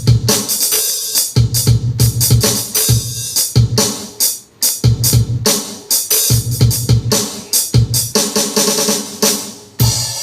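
Zoom MRT-3 drum machine playing a programmed drum pattern: kick drum hits under bright cymbal and tambourine sounds in a steady beat.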